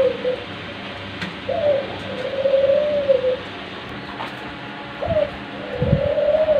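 Caged ringneck doves cooing: each call is a short rising note followed by a long rolling coo, repeated about every three and a half seconds. One call is ending at the start, a full call comes about a second and a half in, and another begins about five seconds in. A few low thumps come near the end.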